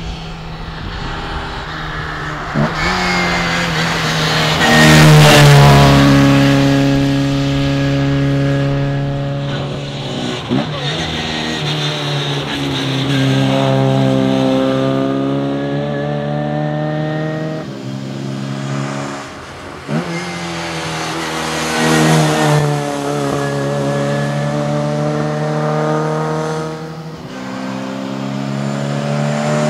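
Morris Mini's four-cylinder A-series engine revving hard under racing load. Its note climbs and falls, with brief breaks about 10, 20 and 27 seconds in where the revs drop between gears.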